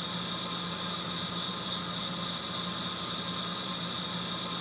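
Steady, unchanging hiss with a constant low hum and several high steady tones layered over it.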